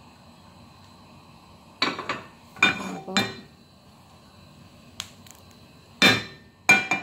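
Nonstick frying pan knocking and scraping against the metal grate of a gas stove as it is lifted and tilted to swirl the heating oil: several ringing clanks from about two seconds in, over a low steady hiss.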